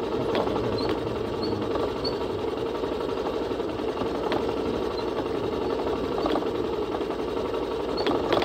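Vehicle engine running steadily on a bumpy dirt track, with scattered sharp knocks and rattles from the rough ride.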